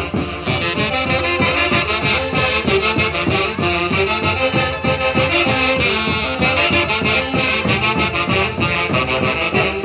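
Band music with saxophones and brass playing the melody over a steady dance beat.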